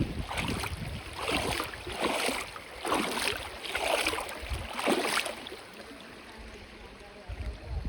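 River water splashing in a rhythmic series of about six swishes roughly a second apart, then quieter running water with wind rumble on the microphone.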